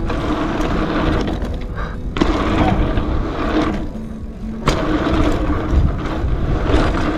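Gravel bike tyres rolling fast over a packed-dirt jump line, with wind rushing over the bar-mounted action camera's microphone. The rolling noise drops out briefly twice, about two seconds in and around four seconds, as the bike leaves the ground over jumps, and each time a sharp knock marks the landing.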